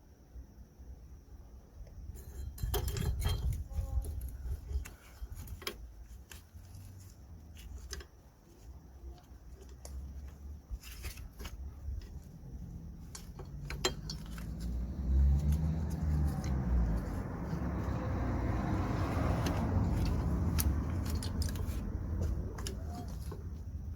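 Metal clinks and rattles of drum brake hardware and hand tools being handled while brake shoe springs and clips are fitted. In the second half a longer rushing rumble rises and fades, louder than the clinks.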